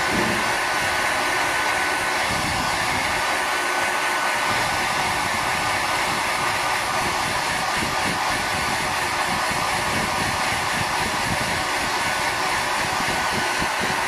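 Handheld hair dryer running steadily, a continuous rush of air with a faint steady whine, blowing hot air onto a jar lid to heat-shrink a plastic seal band around the cap.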